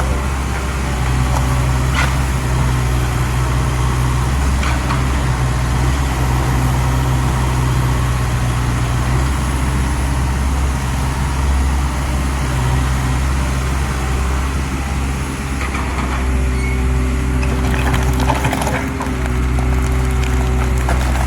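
Excavator's diesel engine running steadily, with a few short knocks and clanks now and then.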